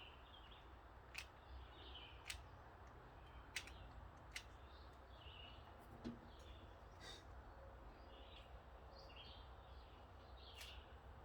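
Faint birds chirping in the background over a low steady hum, with half a dozen short, sharp clicks scattered through.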